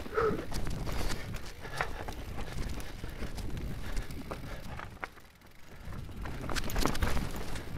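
Mountain bike riding down a wet, rocky dirt singletrack: tyres rolling and sliding over dirt, roots and stones, with the bike's chain and parts rattling and knocking over a steady low rumble. It goes quieter for a moment about five seconds in.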